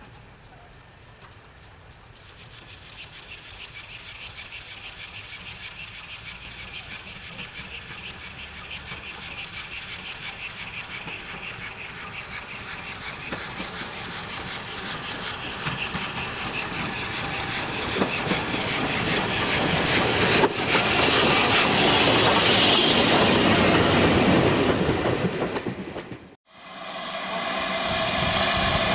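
A steam locomotive hauling a train approaches and runs past, its exhaust beats and the clatter of wheels over rail joints growing steadily louder until it is close by. Near the end the sound cuts off abruptly and a steady noise takes over.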